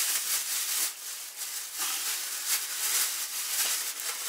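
Thin plastic bags crinkling and rustling in gloved hands as pieces of salted pork fat are packed into them.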